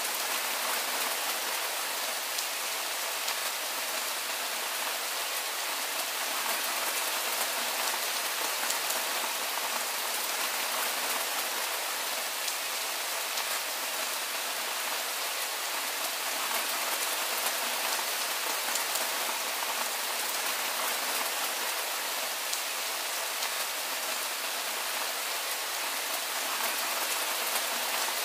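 Steady soft rain falling: an even hiss of many drops, with faint ticks of single drops.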